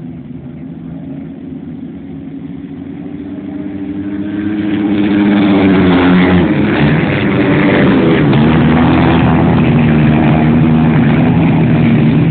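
Flat track racing motorcycles' engines, several at once, growing louder over the first few seconds and then staying loud from about five seconds in, their engine notes rising and falling together as the riders rev.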